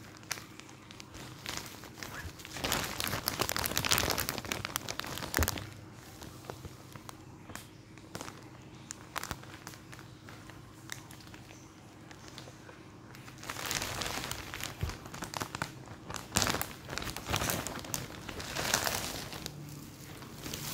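Clear plastic packaging bag crinkling while a football jersey is handled in it and pulled out. The crinkling comes in two louder spells, a few seconds in and again from about two-thirds of the way through, with quieter rustling between.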